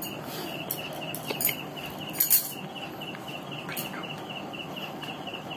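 Insect chirping high and evenly, about five pulses a second, with a few sharp clicks and rustles of playing cards being handled, the loudest about two seconds in.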